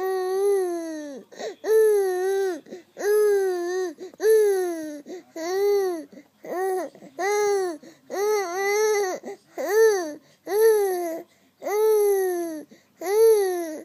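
A 4-month-old baby making repeated high-pitched vocal sounds, about a dozen short arching squeals or cries in a row, each rising and falling in pitch with brief pauses between.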